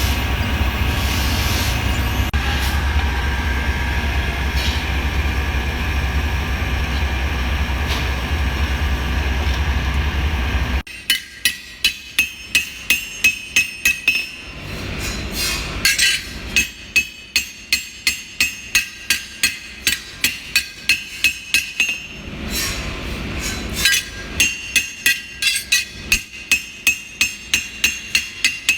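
A power tool runs steadily for about eleven seconds and stops suddenly. Then a hammer strikes metal, about three blows a second in three runs with short pauses, each blow ringing.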